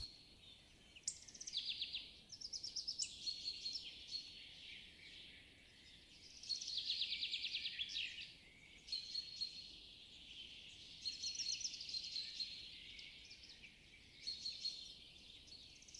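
Songbirds singing softly: short phrases of rapid trilled notes and chirps recurring every second or two, with brief pauses between them, all high in pitch.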